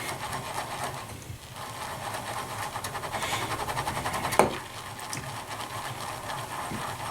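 Shaving brush whisked fast around a lathering bowl, giving a steady rapid swishing and scratching as soap and water start to build into lather. A single sharper knock comes about four seconds in.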